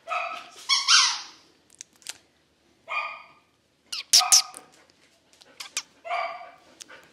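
Border collie barking in a string of short, sharp barks: two in quick succession in the first second, then about four more spaced roughly a second apart.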